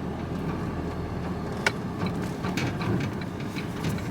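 Van engine running with road and cab noise as the van pulls out to turn around: a steady low rumble, with a single sharp click about a second and a half in.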